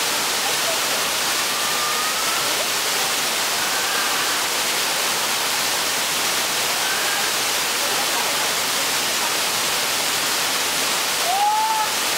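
A waterfall's steady, even roar of water pouring down onto rock, with faint voices calling over it and one brief louder call near the end.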